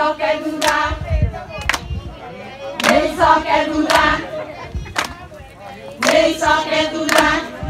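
A group of women singing together, with handclaps keeping a slow, steady beat about once a second.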